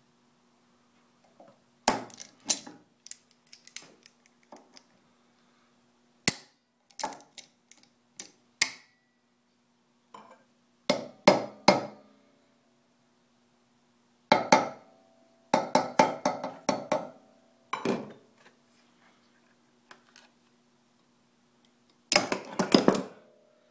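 Hammer tapping a steel concrete nail, ground with three flats, into a drilled-out broken screw so its edges bite into the screw and it can be turned out. The sharp metallic taps come in irregular groups, some single, some in quick runs, a few with a short ring, over a faint steady hum.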